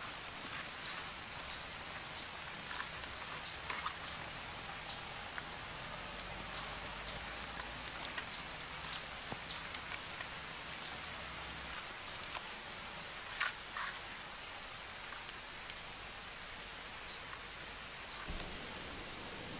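Outdoor ambience: a steady hiss with scattered faint clicks. A little past halfway a high, steady insect drone starts, runs about six seconds and stops shortly before the end.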